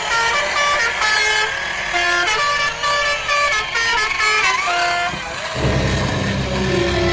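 A run of horn-like electronic tones stepping up and down in pitch, a few notes a second, with some sliding pitches. A deep low rumble comes in about five and a half seconds in.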